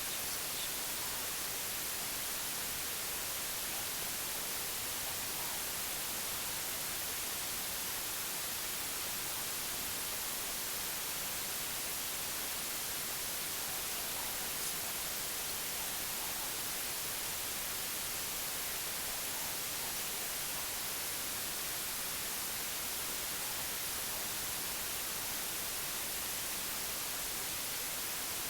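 Steady white noise: an even, unbroken hiss, strongest in the treble.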